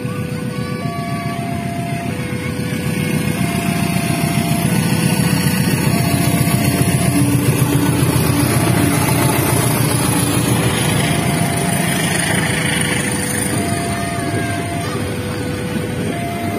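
Railway level-crossing warning alarm sounding a steady two-tone pattern, switching pitch about every second and a half, while a diesel-electric locomotive and its passenger coaches pass. The rumble of the train's engine and wheels builds and is loudest from about six to ten seconds in, then eases as the coaches run by.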